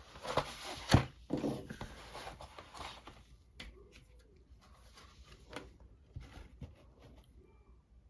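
Board game components being handled, with cardboard and plastic rustling and a sharp knock about a second in. Fainter scattered clicks follow.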